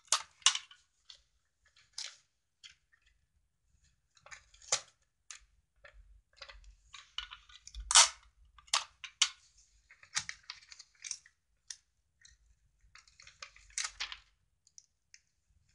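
Stiff paper and clear sticky tape being handled while a paper box's sides are taped down: irregular sharp crackles, taps and rustles, the loudest about eight seconds in.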